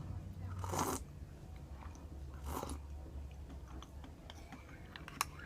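A person chewing and eating close to the microphone, with two louder noisy mouth sounds about a second in and past two and a half seconds, small clicks, and a sharp click near the end. A steady low hum runs underneath.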